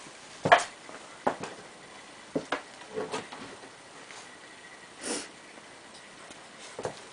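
Irregular knocks, clicks and short scraping noises of parts and tools being handled during work on a moped, with a sharp knock about half a second in.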